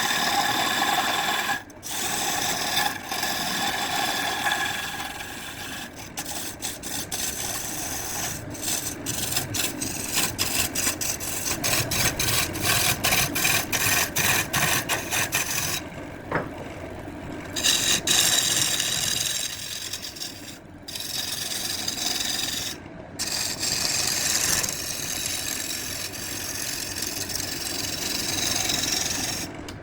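Wood spinning on a lathe with a tool rubbing and rasping against it, continuously, broken by a few short pauses as the tool comes off the wood.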